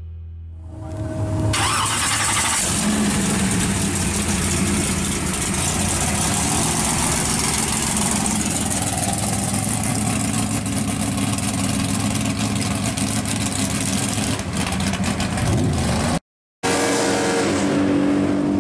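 Loud, steady running of drag-race car engines, coming in about a second in as music fades out. It breaks off for a moment near the end and then resumes.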